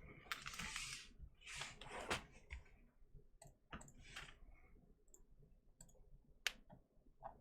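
Quiet handling noises: two brief rustling swishes in the first two seconds, then a few scattered sharp clicks, the loudest about six and a half seconds in.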